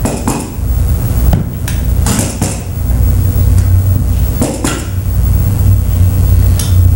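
Several scattered knocks and clatters of stage props being handled, over a steady low hum.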